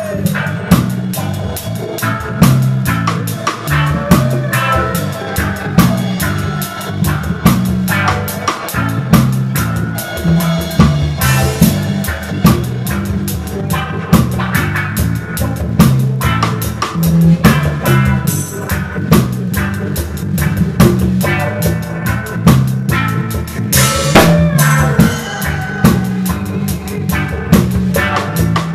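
Reggae band playing live, heard from right beside the drum kit: the drums are close and loud over a steady bass line.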